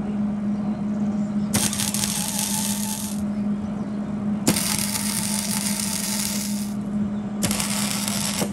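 Gasless flux-core wire-feed welder laying welds on steel tubing: a crackling sizzle in three runs, about a second and a half, two seconds and one second long, with a steady low hum underneath.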